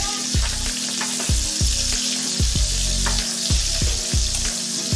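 Fish frying in hot oil in a pan, a steady sizzle. Background music with a regular low beat plays under it.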